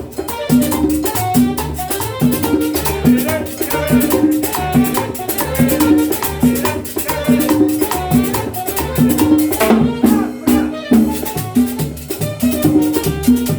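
Latin dance music with a steady percussion beat, shakers and a repeating bass and brass-like riff, typical of salsa or cumbia.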